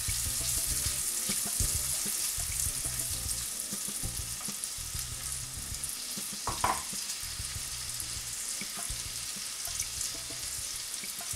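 Chopped onions sizzling steadily in sunflower oil and ground masala spices in a stainless steel frying pan, stirred with a wooden spatula at first and then left to sweat.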